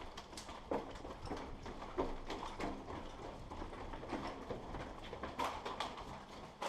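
Footsteps of people running on a hard floor, irregular steps about three a second.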